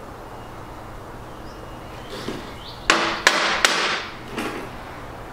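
Screwdriver working a stubborn screw into badly cut threads on a metal receptacle box: three sharp metallic knocks with scraping between them about three seconds in, and a lighter knock shortly after.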